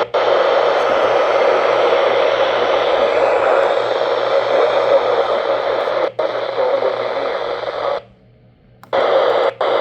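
Weather radio receiver giving out loud, steady static hiss in place of the warning broadcast, a sign of lost or weak reception. It cuts to near silence for about a second near the end, then the hiss comes back.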